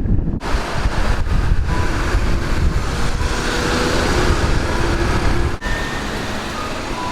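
Road traffic noise, a steady wash of passing vehicles, with wind buffeting the microphone as a heavy low rumble.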